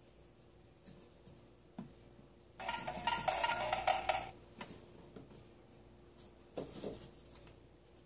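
Hard plastic toy kitchen being handled: a click, then a loud clatter of plastic lasting about a second and a half in the middle, and a shorter clack near the end as the toy microwave door is opened.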